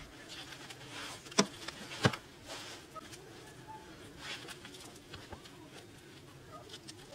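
Sun-dried mud bricks being handled and set onto wet mud mortar: two sharp knocks about a second and a half and two seconds in, with softer scraping and tapping of brick and mud.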